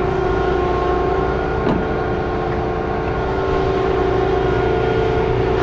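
Combine harvester running steadily: a constant machine drone with a steady whine over a low rumble. There is a faint knock partway through.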